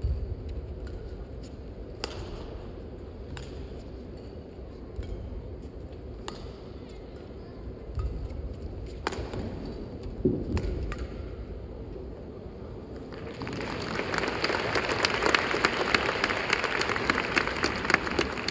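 Badminton rackets striking a shuttlecock in a rally: about five sharp cracks, one to three seconds apart. About thirteen seconds in, the arena crowd breaks into loud applause.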